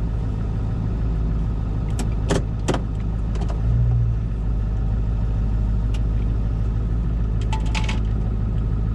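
Pickup truck engine idling, heard from inside the cab as a steady low hum that swells briefly about four seconds in. A few short sharp clicks and rattles sound over it.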